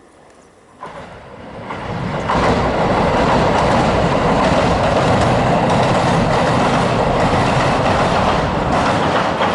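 A train passing on the JR Suigun Line: it comes in about a second in, builds over the next second or so, then runs loud and steady.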